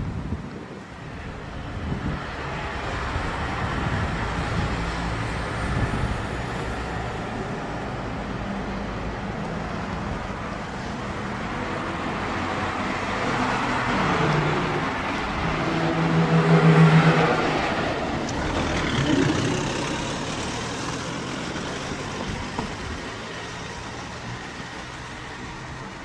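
Road traffic, with one car's engine growing louder to a peak about two-thirds of the way through and then fading away.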